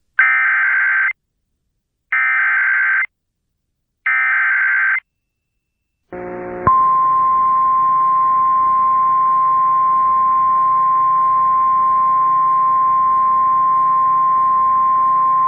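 Emergency Alert System SAME header: three one-second bursts of screeching digital data tones, the header being sent three times. About six seconds in a hiss starts, and the National Weather Service's steady single 1050 Hz warning alert tone sounds over it for about nine seconds, the attention signal that precedes a weather warning.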